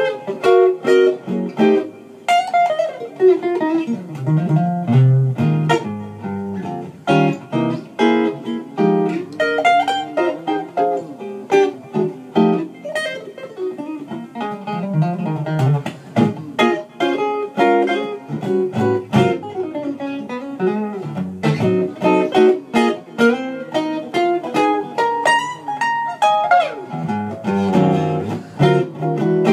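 Solo archtop guitar playing an instrumental piece: picked single notes and chords over low bass notes, in a steady flow of plucked notes.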